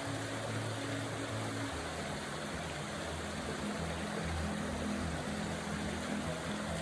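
Background music with slow, held low notes over a steady rush of running water.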